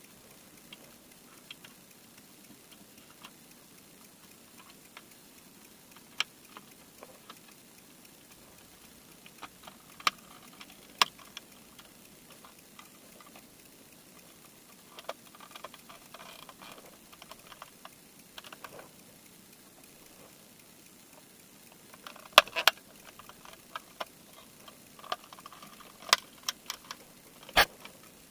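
Scattered sharp plastic clicks and taps from handling a Mercedes W211 mirror housing and its glass backing. They are sparse at first and come in a quicker cluster in the last several seconds.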